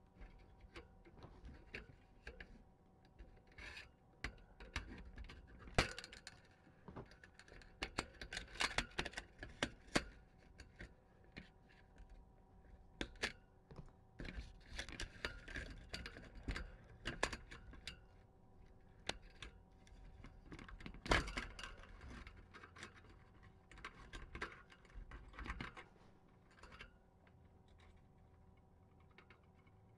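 Small metal ID tags on kittens' new collars jingling and clicking as the kittens move and play, with light scratching and rubbing. The clicks come in scattered irregular clusters.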